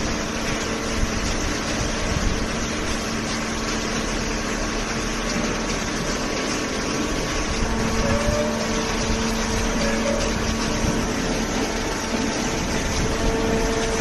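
Horizontal hydraulic baler running steadily: the even hum of its hydraulic pump and motor under a constant hiss of machinery noise.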